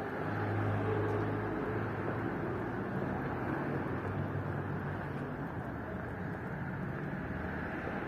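Street traffic: a motor vehicle's engine running with a low steady hum over a wash of road noise.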